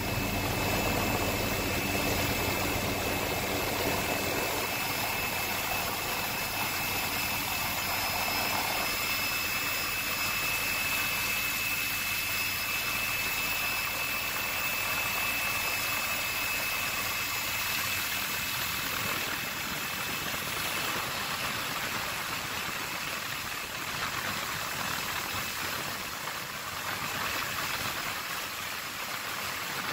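Steady helicopter engine and rotor noise heard from on board, a constant low hum with a thin high turbine whine over it.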